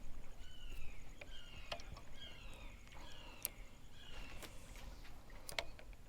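A bird calling: a run of short falling notes, about two a second, that stop a little over four seconds in. A few sharp clicks are heard alongside.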